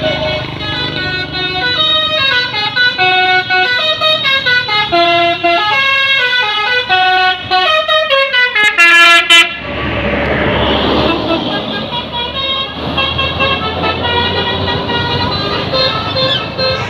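Telolet multi-tone musical air horn on the ALS 103 bus playing a melody, one held note after another, ending in a run of quick loud toots. About halfway through, a loud noisy rush takes over while faint horn tones carry on underneath.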